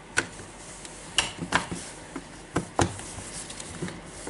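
Plastic housing halves of a cordless drill knocking and clicking as they are fitted and pressed together, a handful of separate sharp knocks.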